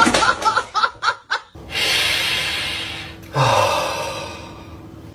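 A person laughing in short bursts for about a second and a half. Then comes a long breathy hiss, and a man's low vocal sound falling in pitch that fades away.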